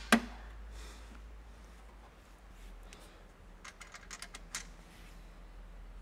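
Faint, scattered clicks and taps of a carriage bolt and hand against the plastic fender-well liner and metal bracket as the bolt is fed up through the bracket slot, with a quick run of small ticks about two-thirds of the way through.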